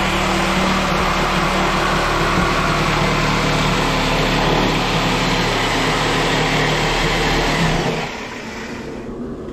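Handheld electric power tool running steadily as it is worked into the plywood subfloor; it cuts off suddenly about eight seconds in.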